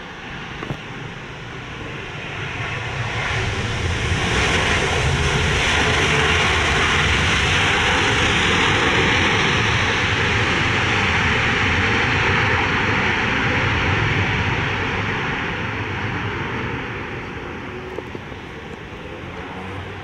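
Jet engines of an Airbus A350 airliner (Rolls-Royce Trent XWB) on its landing rollout on a wet runway: a loud rushing noise that builds over the first few seconds, holds, then fades away near the end.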